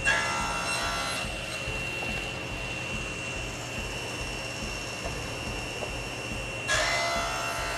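Table saw running steadily with a constant high whine, its blade ripping through a narrow strip of wood twice: one cut of about a second at the start and another near the end.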